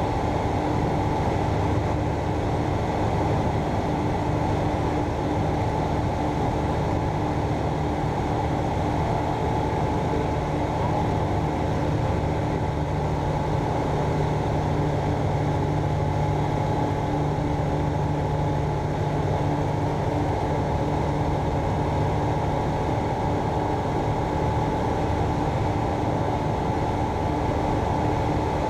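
Rotax engine and propeller of a Land Africa ultralight running steadily in cruise flight, heard from inside the cockpit with rushing air noise. The pitch holds constant throughout.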